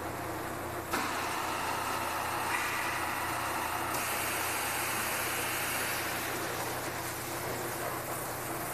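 Steady machinery hum in an industrial shop, joined about a second in, after a click, by a continuous hiss that grows brighter from about four seconds in.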